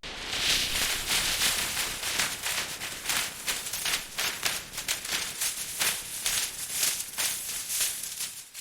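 Shredded scrap metal rattling and clattering as it tumbles in a rotating magnetic separation drum: a dense, irregular rattle of many small hits that fades near the end.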